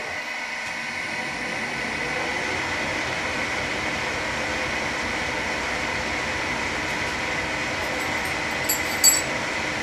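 Schaublin SV-51 milling machine running at 400 rpm under power feed, its boring bar taking a light 0.1 mm facing cut across a welded steel plate: steady running noise with a thin high whine. A few short sharp ticks sound near the end.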